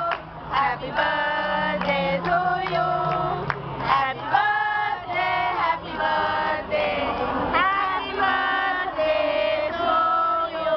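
A group of women singing together, with hand claps.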